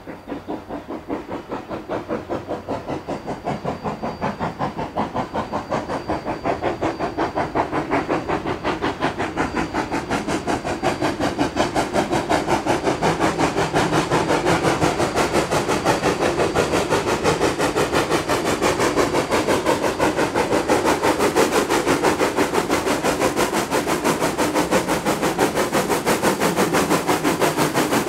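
Rio Grande Southern #20, a 4-6-0 steam locomotive, working with a fast, even beat of exhaust chuffs that grows steadily louder as it approaches.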